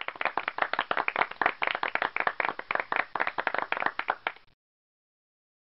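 Applause sound effect: a small group clapping quickly, which stops abruptly about four and a half seconds in. It marks the correct answer.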